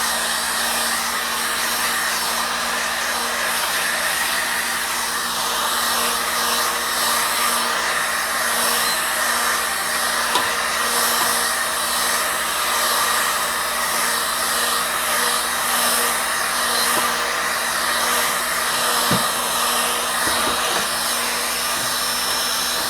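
Electric heat gun blowing hot air steadily, a constant rushing with a low hum from its fan motor, while it heats a circuit board for a solder reflow.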